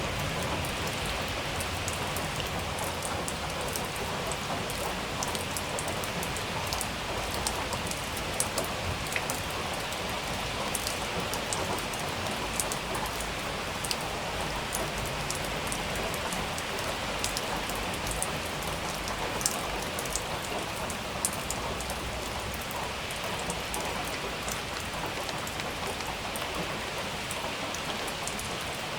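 Steady rain falling, with a dense hiss and many sharp drops spattering close by.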